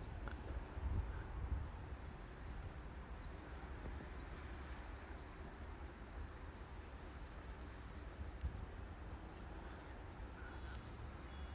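Outdoor ambience: a steady low rumble of wind on the microphone, with faint high bird chirps now and then.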